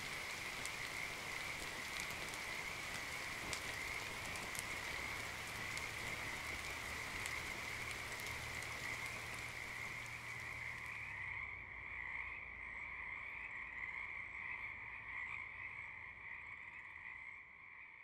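Frogs calling in a continuous chorus, a steady high-pitched drone, with a high hiss underneath that drops away about eleven seconds in. The chorus fades out near the end.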